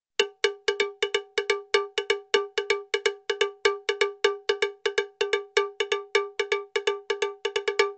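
Rapid cowbell-like metallic strikes at about five a second, each a short ringing tone with a clear pitch and overtones. The pattern is a steady, slightly uneven percussion loop, not the sound of the wire being twisted.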